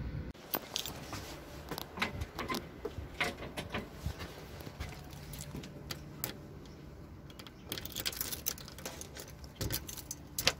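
A bunch of keys jangling, with a run of irregular sharp clicks and rattles as a key is worked in a door's deadbolt lock.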